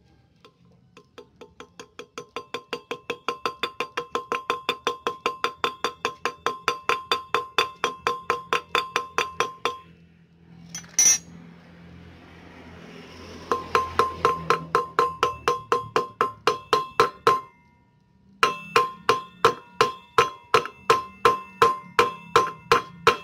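Quick, even hammer taps, metal on metal with a bright ring, about four or five a second, driving a new ball bearing into a motorcycle front wheel hub. The taps are light and worked around the bearing to seat it evenly. They come in three runs, broken by pauses about ten and eighteen seconds in, with one sharp click in the first pause.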